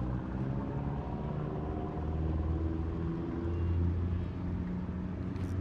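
An engine running with a low, steady hum that swells a little about two seconds in and again around four seconds.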